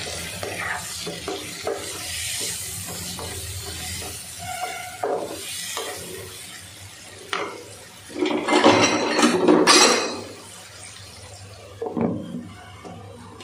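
Flat spatula stirring chopped tomatoes and onions frying in a non-stick wok, scraping and knocking against the pan over a light sizzle, loudest about eight to ten seconds in. Near the end a glass lid is set on the pan with a few clinks.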